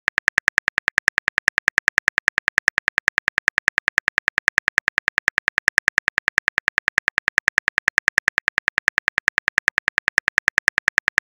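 Simulated phone-keyboard typing clicks from a texting-story app, as a message is typed out. The clicks are short, evenly spaced and come at about eight a second.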